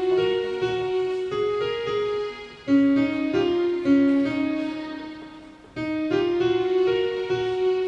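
Electronic keyboard played with a piano-like voice: a simple melody of held notes, the same short phrase starting over twice, each time dying away before the next begins.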